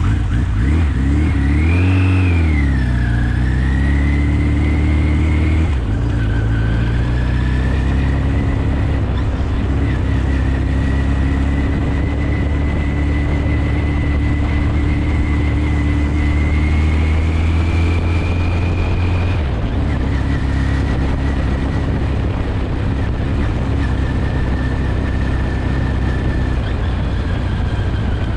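1983 Kawasaki GPZ 1100's inline-four engine running on a ride: the revs rise and fall in the first few seconds, then hold a steady note. The pitch steps down suddenly about six seconds in and again near twenty seconds.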